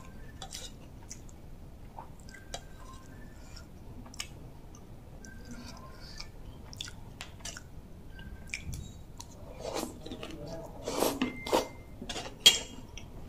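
Close-up chewing and mouth noises of someone eating bamboo-shoot soup with sticky rice, with small clicks and a few light clinks of a metal spoon against a ceramic bowl. The mouth noises grow louder and busier over the last few seconds, ending in one sharp click.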